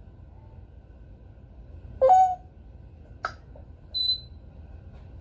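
African grey parrot vocalizing. About two seconds in comes a short call that rises and then holds; just after three seconds a sharp click; and about four seconds in a brief, clear, high whistle.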